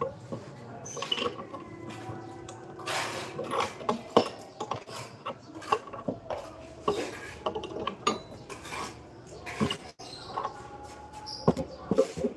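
Hand tools clinking, knocking and scraping irregularly against hard surfaces.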